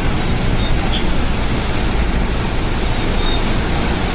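Heavy rain and wind buffeting the phone's microphone: a steady, loud rushing noise with a low rumble underneath.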